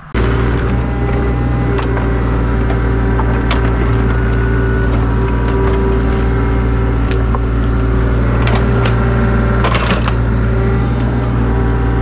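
Excavator engine running steadily while digging a trench, a low, even hum with scattered sharp knocks and clanks from the working machine.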